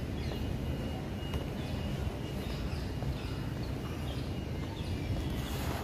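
A bird calling, a series of short, high, falling chirps repeated every half second or so, over a steady low rumble.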